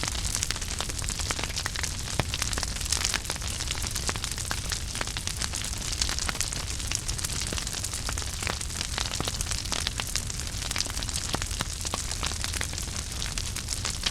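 Wood fire crackling in a fireplace: a dense, steady run of small sharp pops and snaps over a low steady rumble.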